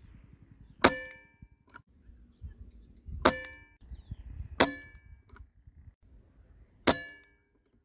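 Kral Puncher Breaker .22 PCP air rifle firing four times. Each shot is a sharp crack followed by a short metallic ring, and the middle two are about a second and a half apart. Fainter clicks follow two of the shots.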